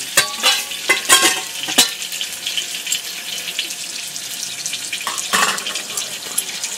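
Wagyu beef sizzling on a griddle pan, a steady frying hiss. Several sharp clicks come in the first two seconds, and a short louder sound about five seconds in.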